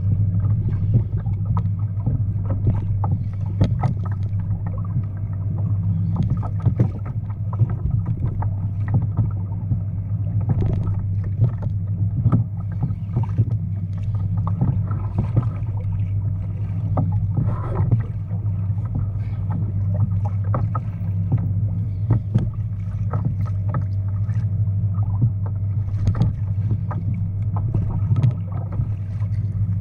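Water slapping and splashing against a fishing kayak's hull, over a steady low rumble, with many short irregular knocks and splashes.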